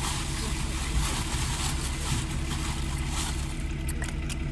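An engine running steadily at low revs, a constant low hum under a broad hiss.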